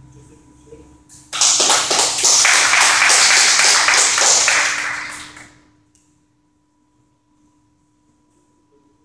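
Group of people applauding: a burst of clapping that starts suddenly about a second in and dies away about four seconds later.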